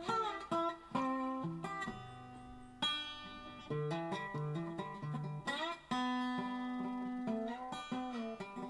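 Background music: an acoustic guitar picking a melody note by note, with a few notes sliding in pitch.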